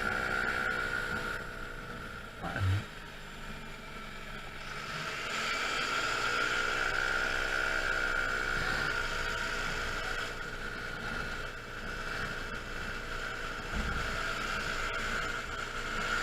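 Honda Zoomer 50 cc four-stroke scooter engine running on the road. The revs drop for a couple of seconds, then climb again as it picks up speed, over a steady high whine, with one brief low knock early on.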